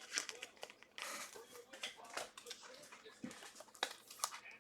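Trading cards being handled and slid over one another: faint clicks and light rustling.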